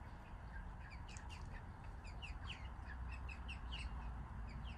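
Birds chirping: many short, high, falling chirps, several a second, over a low steady rumble.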